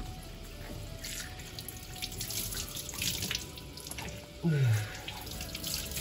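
Kitchen mixer tap running into a sink while cupped hands splash water onto a face, with bursts of splashing. About four and a half seconds in, a man gives a short falling vocal groan.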